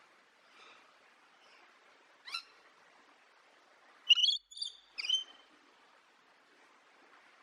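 A bird giving short, high, pitched calls: a faint one, a single call about two seconds in, then a louder run of three close together a little past halfway, over a faint steady hiss.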